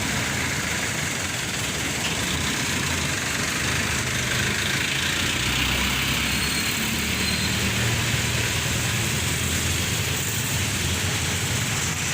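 Steady motor vehicle engine running, with a constant hiss of noise over it.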